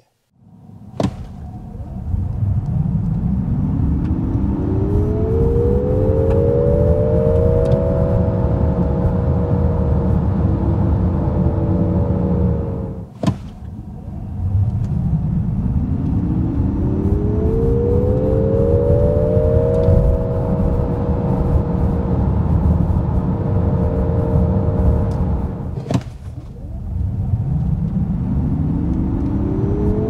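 Nissan Ariya e-4orce electric drivetrain heard from inside the cabin under hard acceleration. A motor whine rises in pitch and then levels off over a steady low road and tyre rumble, with the car on winter tyres. This happens three times in a row, with brief breaks between the runs.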